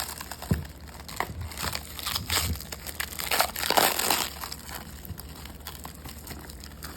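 Plastic packaging crinkling and crackling as it is handled, in irregular bursts with small clicks, loudest about three to four seconds in.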